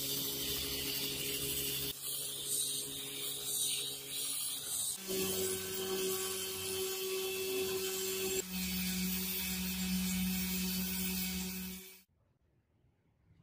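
Small belt grinder running, its abrasive belt hissing as a gold-coloured cast metal axe head is pressed against it. The motor hum shifts pitch twice, about five and eight seconds in, then cuts off abruptly near the end.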